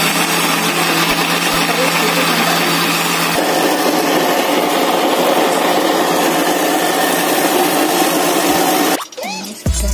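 Electric blender motor running at speed, grinding soaked urad dal and water into a thick batter. Its sound changes about three and a half seconds in, when a steady low hum drops out, and it stops about nine seconds in.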